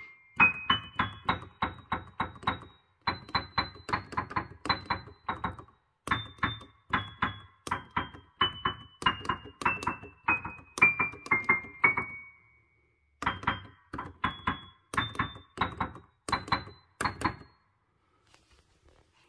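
Yamaha P-105B digital piano played one note at a time with one finger: single notes, about two a second, picking out a slow melody that steps down, then up, then down again. There is a brief pause about twelve seconds in, and the playing stops about two seconds before the end.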